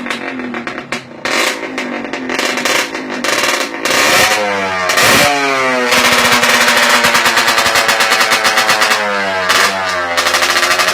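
Kawasaki Leo Star motorcycle engine being revved with a series of short throttle blips. It then revs up and back down once, and is held at high revs with a rapid exhaust pulsing. The revs drop briefly and rise again near the end.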